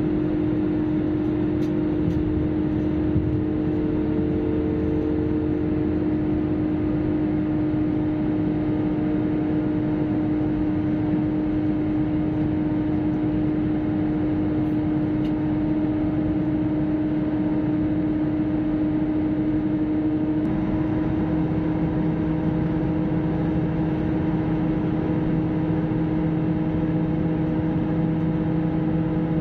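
Steady cabin drone of an Airbus A320-family jet airliner in flight, engine and airflow noise with several held humming tones. About twenty seconds in the tones shift in pitch and a lower hum joins, as the engine setting changes.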